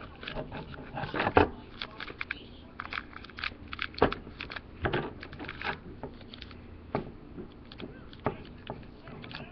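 A crinkly plastic Shopkins blind bag being cut with scissors and pulled open by hand: irregular crackling and crinkling with a few sharper snaps, the loudest about a second and a half in and again about four seconds in.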